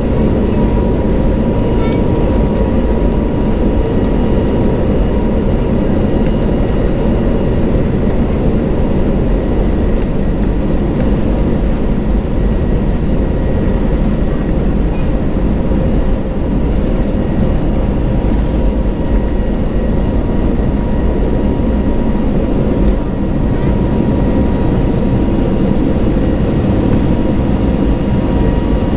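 Turbofan engines of a jet airliner heard from inside the passenger cabin during takeoff: a loud, steady roar with a steady high whine running through it.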